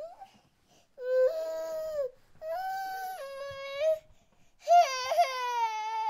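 A baby crying: a brief whimper at the start, then three long wails, each a second or more, separated by short pauses.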